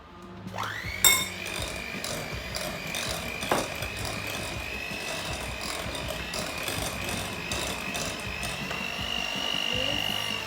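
Electric kitchen mixer starting up about half a second in, its motor whine climbing quickly to a steady pitch and edging higher as it runs, with a sharp knock about a second in and another a few seconds later, then stopping at the end.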